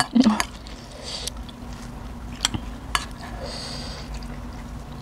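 A spoon clinking and scraping on a dinner plate during a meal: a few sharp clicks about a second apart, with soft eating noises between them over a low steady hum.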